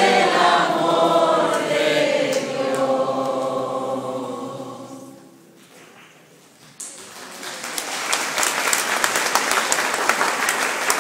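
Congregation singing a hymn together, the last note held and fading away about five seconds in; after a short hush, applause breaks out and continues.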